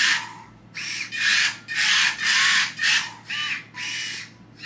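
A small combat robot's arm servo and drive motors whining in about seven short bursts, the pitch rising and falling within a burst, as the arm is swung and the robot driven to test newly set servo endpoints.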